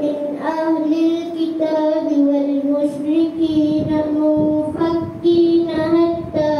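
Quran recitation chanted melodically in a child's voice, with long held notes that step between pitches.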